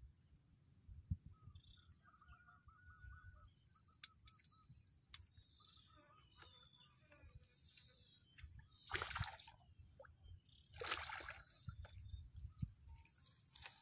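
Faint water sloshing and splashing at the water's edge, in three short bursts in the second half, over a steady high whine and a few faint chirps.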